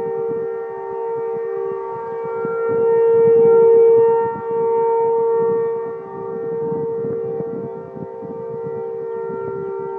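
Three outdoor warning sirens, an ACA P-10, an ASC RM-127 and a Federal Signal STL-10, sound a steady Alert tone together from about half a mile to a mile away. Their held pitches blend into a chord. The sound swells and fades every few seconds as the rotating sirens sweep past.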